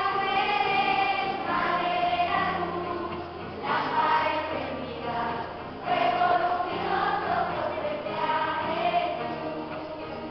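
Children's choir singing a hymn to acoustic guitar accompaniment, in phrases that start afresh about every two seconds.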